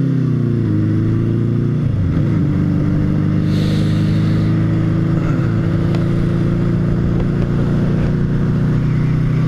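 Motorcycle engine running under way, with a steady note that dips and comes back up between about half a second and two and a half seconds in, then holds steady. Wind rushes over the rider's microphone in gusty conditions.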